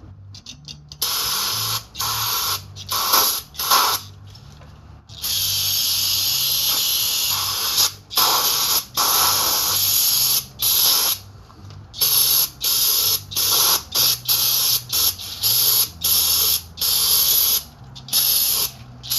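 Aerosol brake cleaner sprayed into a front wheel hub in many short bursts, with one longer spray of about three seconds, flushing out the last of the old grease.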